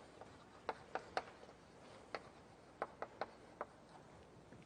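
Faint, irregular sharp taps and clicks, about eight in all with gaps between, typical of writing on a lecture-hall board.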